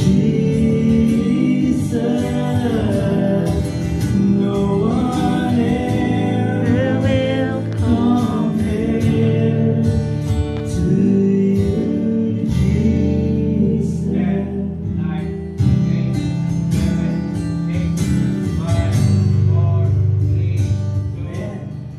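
A man singing a Christian worship song with instrumental accompaniment.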